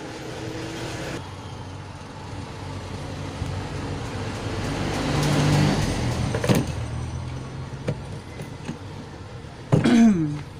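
A motor vehicle passing by, its engine and road noise swelling to a peak about halfway through, then fading. A sharp knock comes just after the peak, and near the end there is a short, loud sound that falls in pitch.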